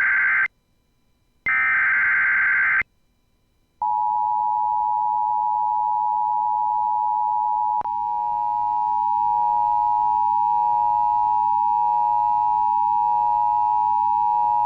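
Emergency Alert System SAME header data bursts encoding a flash flood warning: the end of one harsh buzzing burst, a second of silence, another burst about 1.3 s long, and another gap. About 4 seconds in, the steady two-tone EAS attention signal starts and holds, with a faint click a few seconds later.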